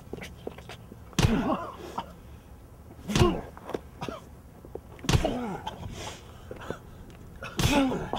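Four heavy blows about two seconds apart, each with a short grunt that falls in pitch.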